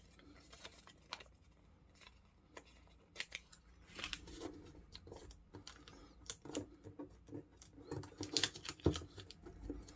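A sheet of colored origami paper rustling as fingers fold it and press the creases, in short crisp clicks and rustles that come sparsely at first and more often after about three seconds.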